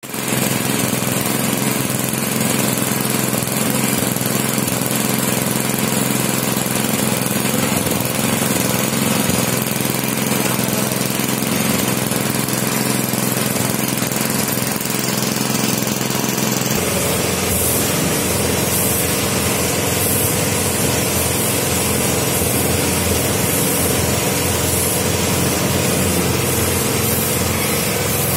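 Air compressor running steadily while a spray gun hisses, spraying primer. About 17 seconds in the running sound deepens and the hiss comes in short repeated spurts.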